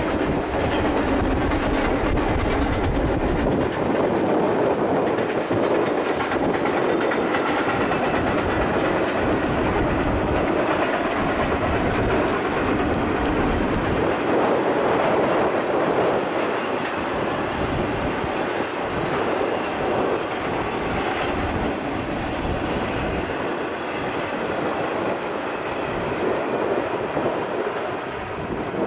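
Union Pacific double-stack intermodal freight train rolling past: a steady rumble of wheels on the rails, with occasional sharp clicks.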